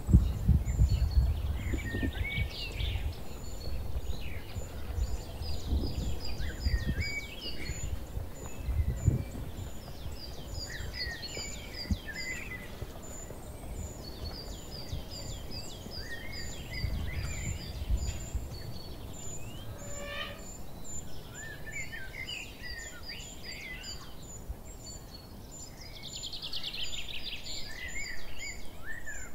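Several small songbirds singing and chirping at once, with quick repeated high notes and short trills over a steady outdoor background. A low rumble comes and goes, strongest in the first few seconds.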